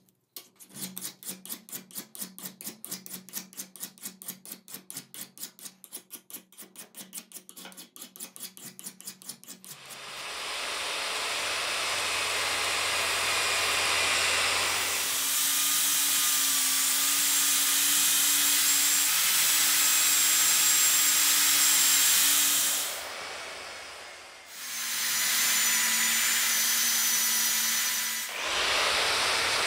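A hand file scraping across a steel sledgehammer head in rapid strokes, about five a second, for some ten seconds. Then an angle grinder with a sanding disc on a backing pad runs steadily against the steel head, its sound dipping and coming back twice near the end.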